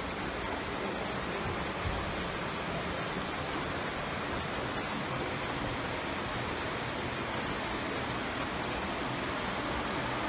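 Steady, even rushing noise, with a single soft knock about two seconds in.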